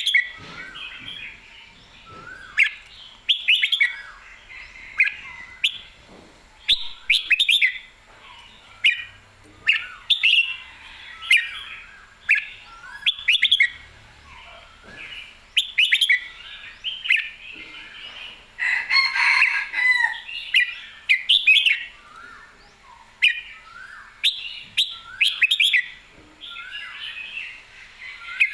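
Red-whiskered bulbul singing short, bubbly phrases about once a second, with sharp clicks in between.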